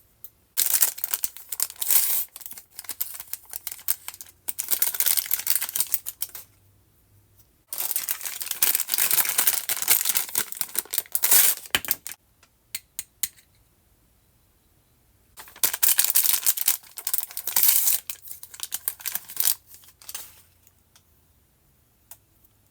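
Barbie Color Reveal packaging being crinkled and torn open by hand, in three long bouts of rustling with short pauses and a few sharp clicks between them.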